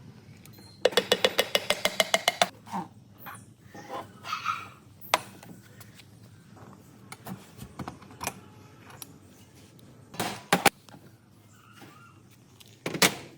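Workshop tool and metal-part noises from work on an engine generator. About a second in there is a quick run of sharp clicks, about eight a second, with a rising tone under them, lasting a second and a half. After that come scattered single knocks and clanks, with a louder pair near the end.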